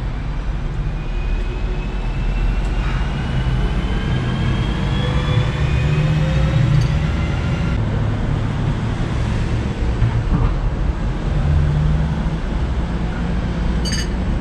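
Low, steady rumble of a motor vehicle, with a faint whine that rises slowly in pitch over the first half. Near the end a cup clinks as it is set down on its saucer.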